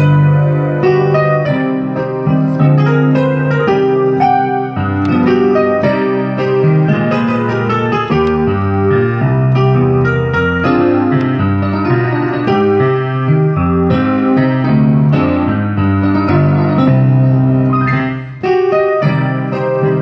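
Electronic keyboard played with both hands: slow held chords over bass notes, changing every second or two, with a brief break near the end.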